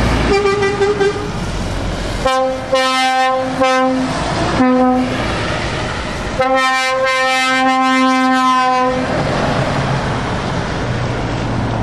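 Truck air horns sounding over passing diesel tractor units: a short toot about half a second in, a run of short blasts from about two to five seconds in, then one long blast of about two and a half seconds. Engine and tyre noise from the trucks on the wet road runs underneath.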